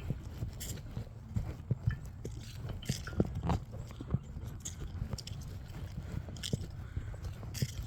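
Footsteps crunching through dry fallen leaves at a walking pace, with a low rubbing rumble from the phone worn on the walker's chest.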